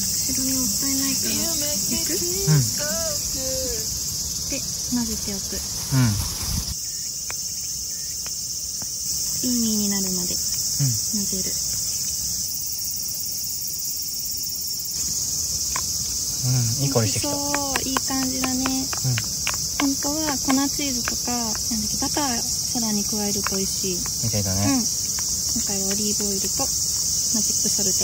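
A steady, high-pitched chorus of insects trilling in the summer grass and trees, with the level stepping a few times.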